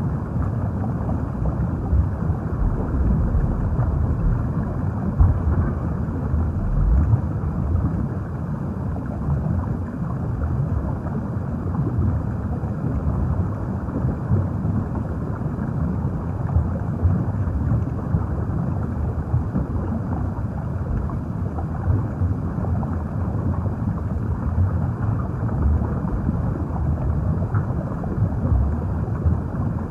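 Underwater ambience: a steady, muffled, low rumbling wash of moving water that surges gently and never stops.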